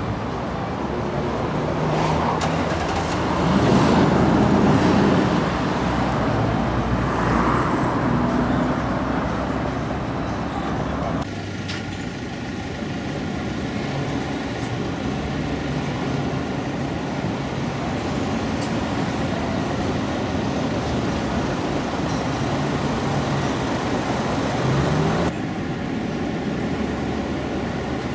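City street traffic noise: a steady hum of passing cars and engines.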